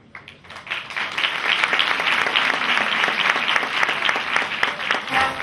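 Audience applauding: the clapping starts just after a short silence, swells within about a second, and then holds as dense, steady applause.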